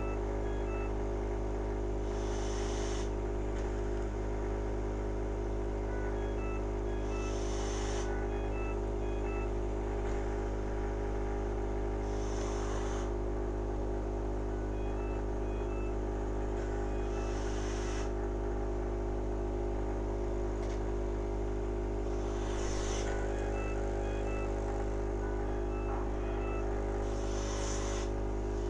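Medical respiratory machine running with a steady motor hum. A hiss of air comes about every five seconds, with faint short pips in between.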